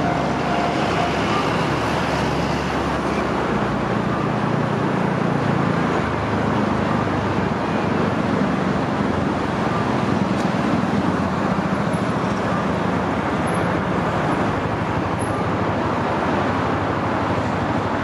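Steady road traffic noise from cars driving on a busy street. A receding electric train's running sound fades out in the first second or two.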